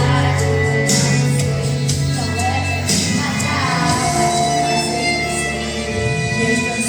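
Portuguese Christian worship song playing: steady bass notes under instruments, with faint singing.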